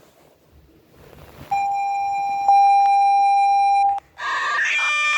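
South Korean emergency alert tone played back: a steady electronic beep tone with overtones starts about a second and a half in, grows louder a second later and cuts off, then a harsher, buzzier multi-tone alert sound begins near the end.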